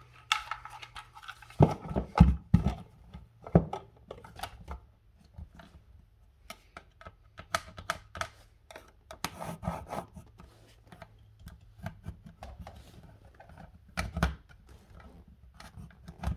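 Scattered clicks, taps and light scraping of hand work: an old-work electrical box being handled against drywall and traced around with a pencil. A few louder knocks stand out about two seconds in and again near the end.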